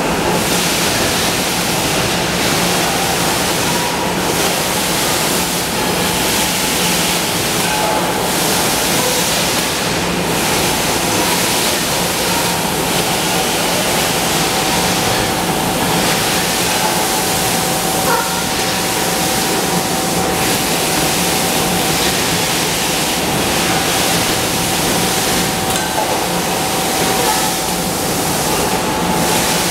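Steady machinery noise of an aluminum cookware production line's conveyors and presses, a loud even din with a low hum and a thin high tone running through it. A few faint clicks stand out now and then.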